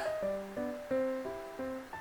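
Background music: a light plucked-guitar melody, a few notes a second.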